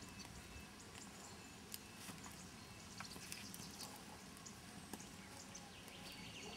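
Faint crackling of a wood fire: scattered sharp pops, about one a second, over a quiet background.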